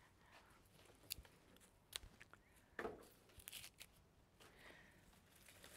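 Faint, scattered clicks and rustles of flower stems being handled and trimmed with a florist's knife, a few sharp ticks spread over a few seconds.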